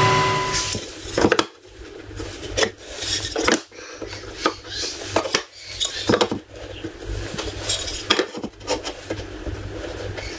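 A router table's motor runs briefly and stops abruptly under a second in. Then loose wooden boards and trim pieces are set onto a wooden hatch top: a string of light knocks and clicks, with wood sliding and rubbing against wood between them.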